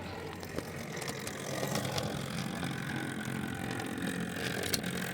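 O gauge model locomotive running along the track: the steady whir of its electric motor and gearing, with light clicks from the wheels on the rails, a little louder from about a second and a half in.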